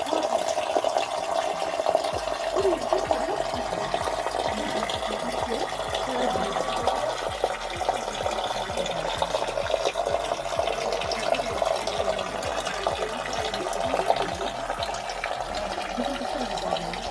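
Running water, a steady rush.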